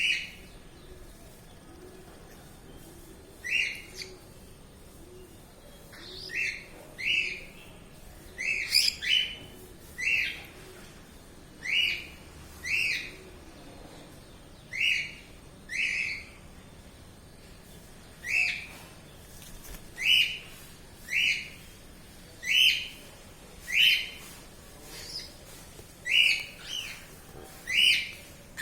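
A bird giving short, sharp chirps over and over, about twenty in all, spaced irregularly a second or two apart, some of them in quick pairs.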